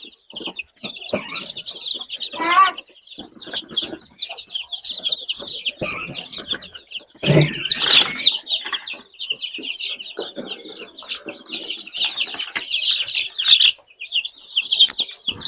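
A flock of young chickens peeping and chirping continuously at a high pitch, with a brief louder flurry about seven seconds in.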